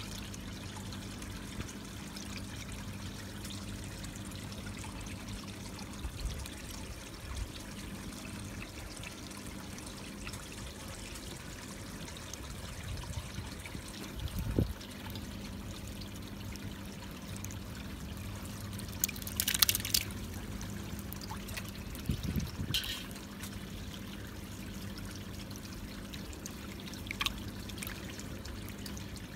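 Steady trickle of water under a low steady hum, broken by a few short splashes and knocks, the most prominent a bright one about two-thirds of the way through.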